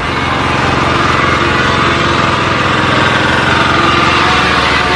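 Small motorcycle engine running steadily under way, its level building a little in the first second.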